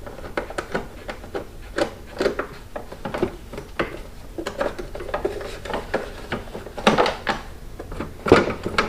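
Hand tools and metal hardware clinking and knocking irregularly while a nut is being taken off: a series of separate taps and clicks, a little louder and closer together near the end.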